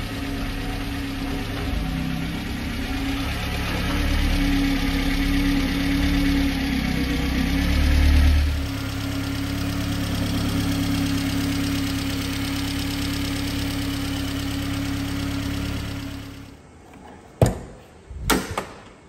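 1996 Subaru Sambar truck's 658 cc EN07 'Clover 4' four-cylinder engine idling steadily. It stops about sixteen and a half seconds in, and two sharp knocks follow near the end.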